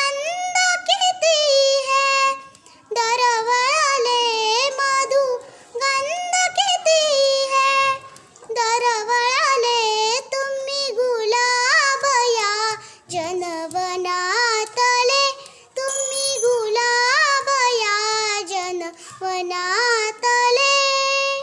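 A young girl singing a Marathi poem solo and unaccompanied, in a high, clear voice with ornamented, wavering phrases and short breaths between lines.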